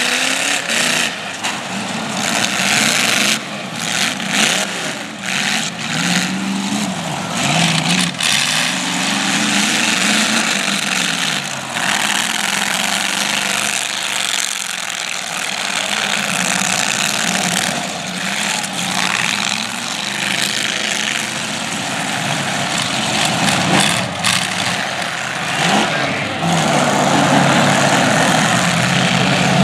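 Demolition derby cars' engines revving up and down hard on a dirt track, with several sharp bangs of cars crashing into each other.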